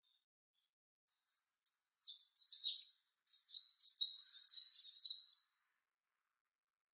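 Great tit giving a few high calls, then singing a short phrase of four repeated two-note units, each a higher note dropping to a lower one: the species' typical 'tea-cher' song.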